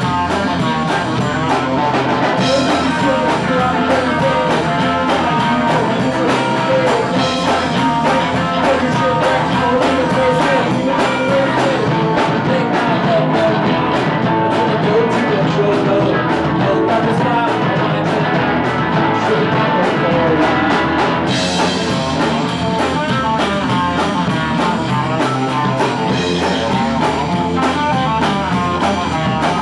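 A rock band playing live: electric guitar, bass guitar and a drum kit at a steady beat.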